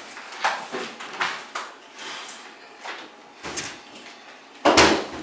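Knocks and clatters of things being handled in a kitchen: several short strikes spread through, the loudest a heavier thump near the end.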